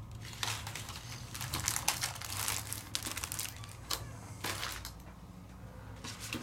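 Handmade paper sample cards being picked up and handled, rustling and crinkling in short irregular strokes. The rustling dies down for the last second or so.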